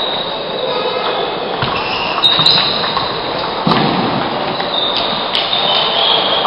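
Table tennis balls clicking off paddles and tables in a busy hall full of matches, with a few short high squeaks and a steady hubbub in the background.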